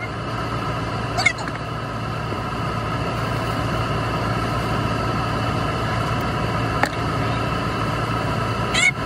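Steady motor hum with a low drone and several steady higher tones, unchanging throughout. A toddler gives a brief high squeal about a second in, and there is a single sharp click near the end.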